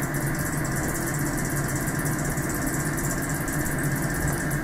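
Steady mechanical hum and hiss of a running machine, even throughout, with a low droning tone underneath.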